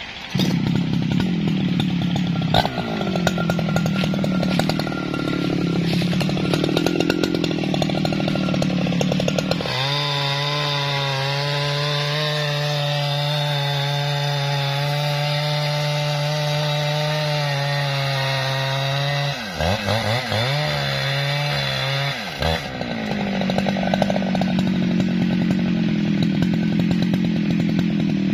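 Jonsered two-stroke chainsaw at high revs cutting into the base of a standing tree trunk to fell it. The engine note rises and falls under the changing load for the first ten seconds, holds steady through the middle, dips and wavers briefly about two-thirds of the way through, then wavers again.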